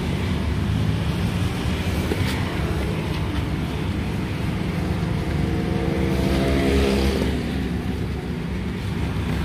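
Road traffic: a steady low rumble, with one passing vehicle's engine climbing in pitch over a few seconds before it fades.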